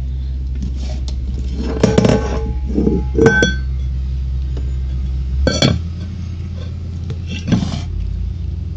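Kitchenware clinking and knocking: a few sharp metal-and-glass knocks, one ringing briefly about three seconds in, over a steady low background hum that eases about five and a half seconds in.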